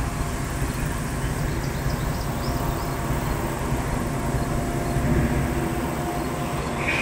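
Diesel-electric freight locomotive's GE GEVO V12 engine working under load as the train pulls away, a steady low chugging rumble.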